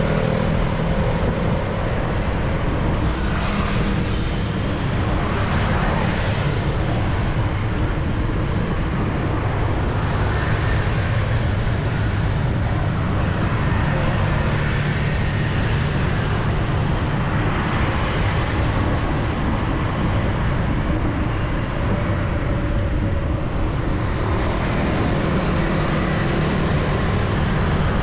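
Steady city street traffic noise heard from a bicycle riding along the road, with vehicles passing now and then.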